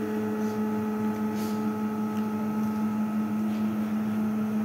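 A steady hum with a few faint clicks from people eating.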